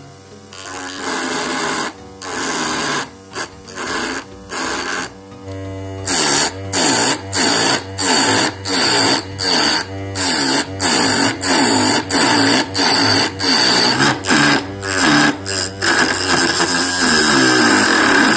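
Homemade lathe's 12 V DC motor spinning a wooden workpiece while a hand-held sharpened blade scrapes it in short repeated cuts, irregular at first and then about two a second. The motor's whine dips in pitch with each cut as the blade bites and drags it down.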